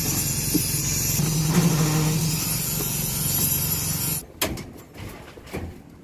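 Small petrol-engine concrete poker vibrator running steadily, its flexible shaft working fresh concrete to drive out air bubbles. The steady hum cuts off abruptly about four seconds in, leaving a quieter stretch with a couple of light knocks.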